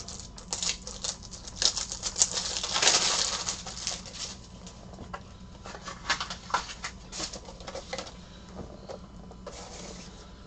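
Handling noise from fetching a pack of plastic card top loaders: a busy run of clicks, taps and rustles, with a louder stretch of rustling about three seconds in.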